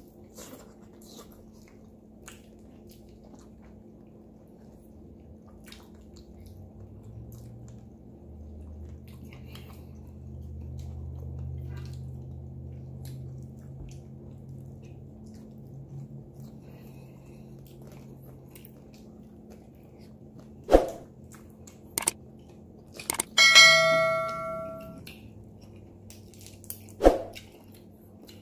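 Faint eating sounds over a low steady hum, then a few sharp knocks and, near the end, one loud metallic ringing clang of a struck object that dies away over about a second and a half.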